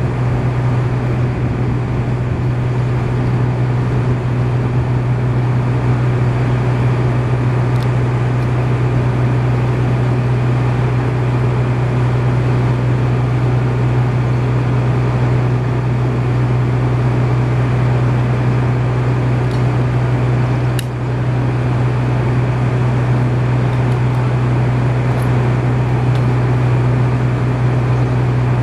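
An engine running steadily at constant speed, a loud even drone with a strong low hum.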